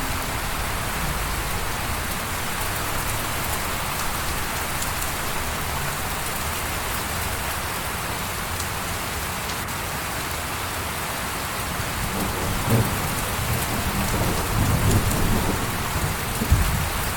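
Steady rain falling and pattering on surfaces. In the last five seconds or so, an irregular low rumble rises under it.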